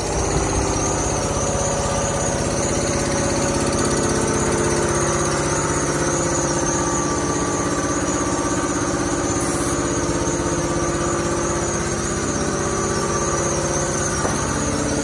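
A motor or engine running at a steady, even speed.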